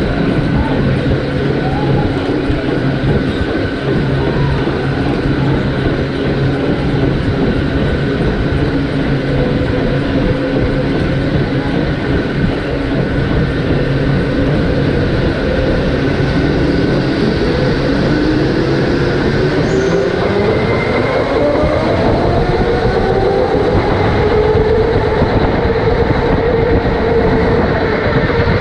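Electric go-kart motor whining steadily over a constant rushing noise while the kart races. Past the middle, the whine climbs steadily in pitch as the kart accelerates.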